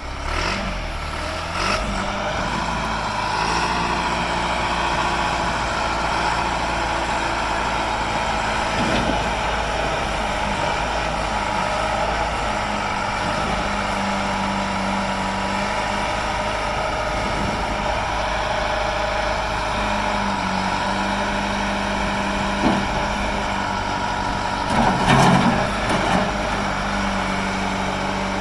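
John Deere 610B backhoe loader's diesel engine running steadily at idle, with a steady whine above it and a few brief louder surges or knocks, the loudest about 25 seconds in.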